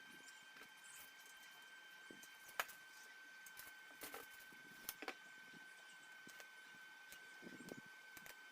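Near silence: a faint steady high whine, with a few light clicks and taps scattered through it; the sharpest click comes about two and a half seconds in.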